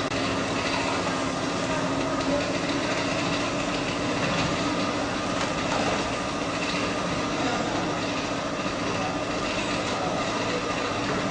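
Automatic industrial arm template sewing machine running, a steady mechanical clatter that holds at an even level throughout.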